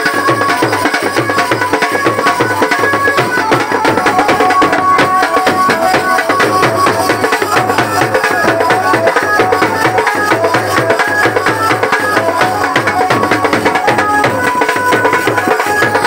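Loud Indian folk music on a stick-struck barrel drum (dhol) playing a fast, dense beat without a break, with a high melody line stepping between notes above it.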